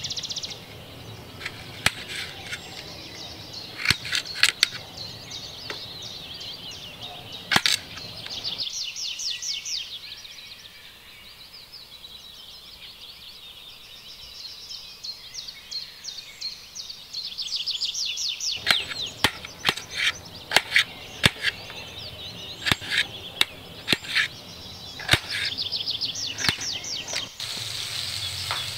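Sharp knocks of a cleaver chopping on a wooden cutting board, coming singly and in quick clusters, with birds chirping steadily throughout.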